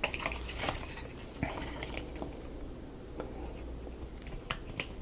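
Small marble-run parts being handled and test-fitted: light scrapes and rustling with a few sharper clicks, one about a second and a half in and two close together near the end.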